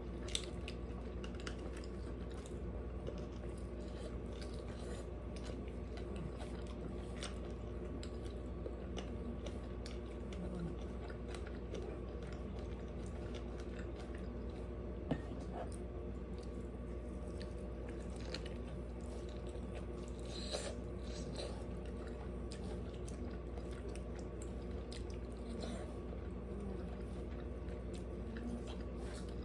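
Close-miked chewing and biting of food, with scattered short crunches and wet mouth clicks throughout, over a steady low hum.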